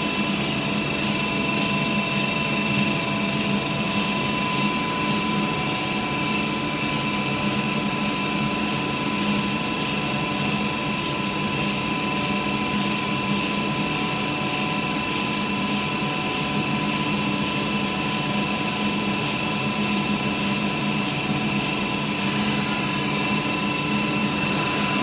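Kellenberger Kel-Vista CNC cylindrical grinder running: a steady mechanical hum with a constant high whine over it.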